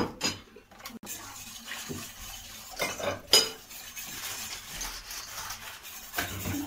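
Stirring a milk, cornstarch and sugar mixture in a stainless steel pot. The utensil scrapes steadily around the metal, with a few sharp clinks against the pot, one at the start, two about three seconds in and one near the end.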